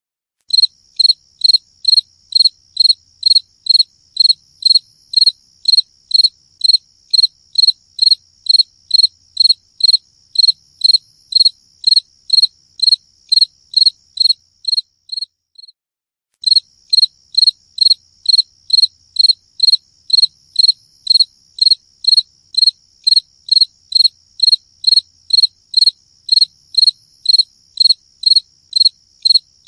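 Cricket chirping in a steady rhythm, about two short high chirps a second, stopping for about a second midway before starting again.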